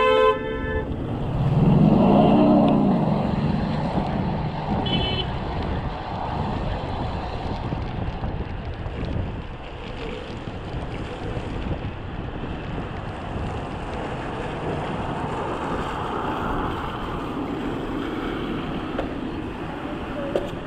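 Wind buffeting the microphone over steady road and traffic noise while riding a bicycle in the rain. A vehicle passes loudly about two seconds in, its engine pitch rising and falling. About five seconds in there is a brief high ring.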